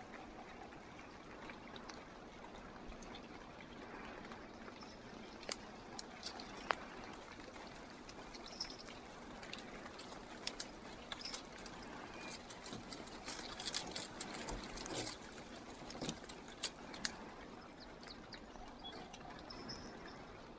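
Faint steady hiss with irregular light clicks and crackles, thickest in the middle stretch: dry twigs and dead leaves crackling as a cat climbs through a bare shrub.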